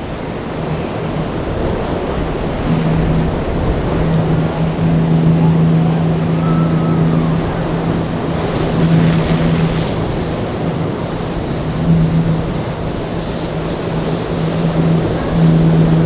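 Pontoon boat's outboard motor running with a steady hum that fades in and out, over the rush of choppy waves and wind.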